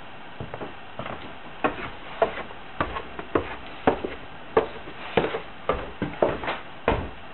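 A series of short, sharp knocks at a fairly even pace of a little under two a second, sparse at first and more regular from about two seconds in.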